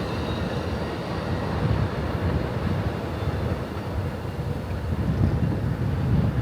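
Amtrak passenger train rolling past, a steady rumble of wheels on the track with a faint high squeal near the start.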